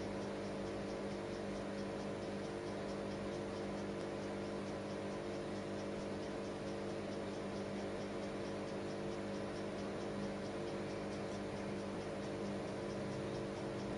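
Steady low hum over an even hiss, with faint quick ticking, several ticks a second, running along behind it.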